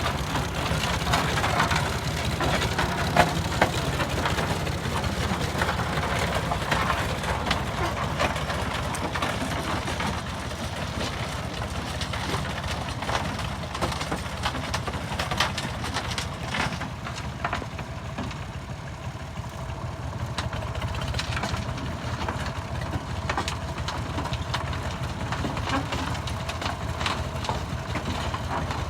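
Road roller's diesel engine running steadily, with scattered knocks and clatter over the top.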